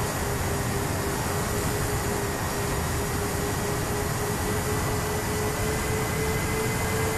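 Twin electric motors and propellers of a Sonicmodell Binary RC plane running at steady cruise throttle, heard from a camera on the airframe: a steady motor whine over heavy wind rush.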